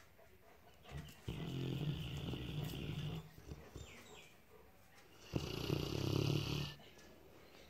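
A sleeping dog snoring: two long, rasping snores about four seconds apart, with quieter breathing between them.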